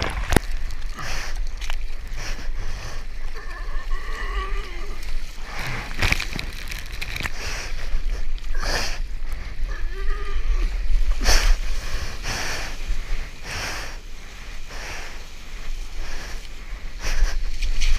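Water splashing and sloshing against a waterproof action camera as a surfer paddles a soft-top surfboard through choppy water and whitewash, with repeated splashes every second or so over a steady low rumble of water on the microphone.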